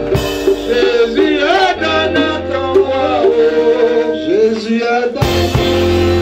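Live gospel praise music: a man sings through a microphone and PA with sustained instrumental accompaniment and drums, his voice sliding between notes.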